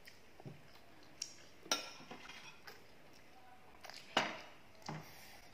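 Metal spoon clinking and scraping against a ceramic plate during a meal: about five sharp, irregularly spaced clinks, each with a short ring, the loudest about a third of the way in and again past the middle.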